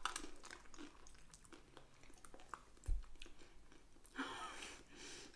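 Close, quiet chewing and small wet mouth clicks as a spoonful of soft mango mousse pastry with mango pieces is eaten, with a dull bump about three seconds in.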